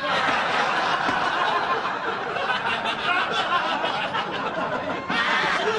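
A large audience laughing loudly and steadily after a joke.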